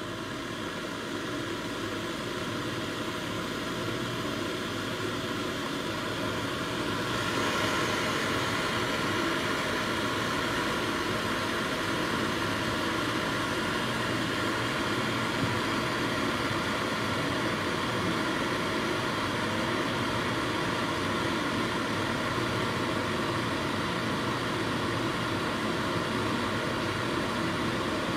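Electric glass kettle heating water, a steady hiss and rumble that grows louder over the first several seconds, with a brighter hiss joining about seven seconds in: the water at about 55 to 59 °C, warming but still well short of the boil.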